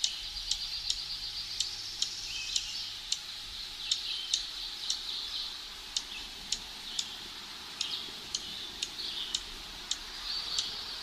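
Dark-eyed junco giving sharp chip calls, about two a second at an uneven pace, over a steady high-pitched background chorus.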